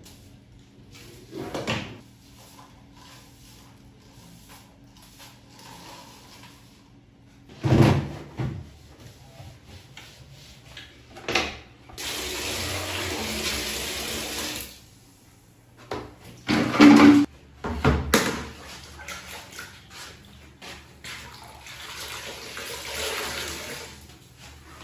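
Water running for a few seconds about halfway through, and again more faintly near the end, among several sharp knocks and thumps of things being handled.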